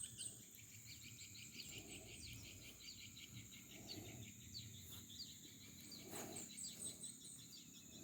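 Faint outdoor ambience of birds chirping in quick repeated notes over a steady, high insect drone.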